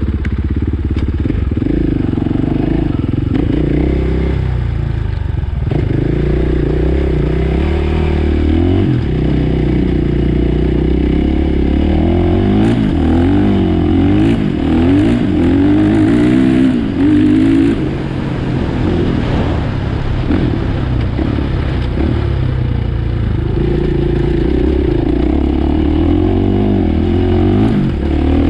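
2017 KTM 500 EXC-F single-cylinder four-stroke dirt bike engine running under way, its engine speed rising and falling over and over with the throttle.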